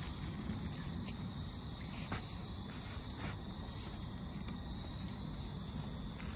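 Crickets trilling steadily in one high tone, with a few short scraping knocks of shovels cutting into the soil, about two and three seconds in.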